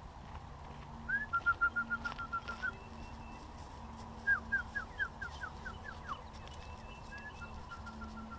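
A songbird singing: a quick trill of about ten even, repeated notes about a second in, then a run of short down-slurred notes a few seconds later, and a fainter trill near the end, with softer, higher chirps from another bird in between.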